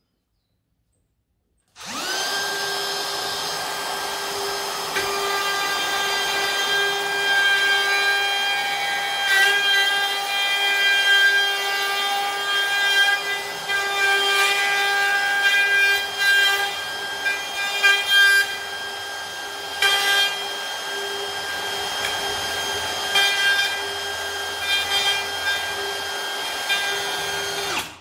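Compact electric router starting up about two seconds in and running at a steady high whine while it cuts a handle recess through a template into hard Iroko. The cutting makes the pitch and level waver, most unevenly from about nine to twenty seconds in, and the router stops right at the end.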